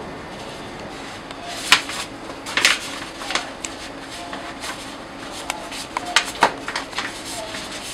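Paper crepe wrapper rustling and crinkling in several short bursts as a rolled crepe is lifted and wrapped, over steady background noise.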